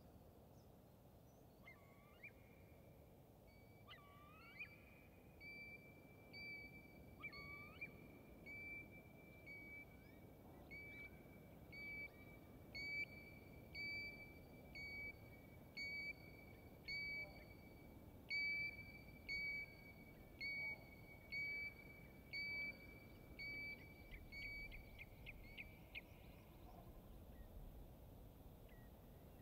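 A bird repeating a single clear whistled note at a steady pitch, a little more than once a second, the series ending in a quick rattle of clicks.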